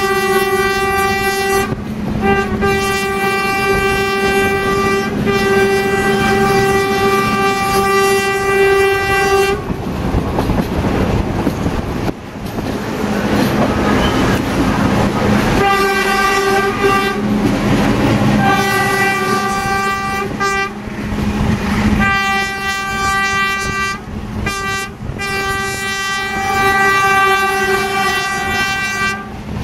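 A diesel train's horn sounds long, steady single-note blasts over the rumble and clatter of the carriages running on the rails. The horn falls silent for about six seconds a third of the way in, leaving only the running noise, then sounds again in several long blasts with short breaks.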